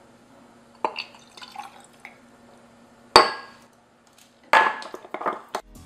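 Liquid poured from a small glass beaker into another glass beaker with faint trickling and drips, then a sharp clink of glass that rings briefly, and a louder clattering knock of glassware or a small metal whisk. Background music starts right at the end.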